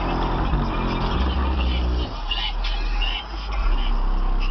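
Aftermarket trunk subwoofers playing bass-heavy music, heard from outside the car. The deep bass is strongest for about the first two seconds, then drops back.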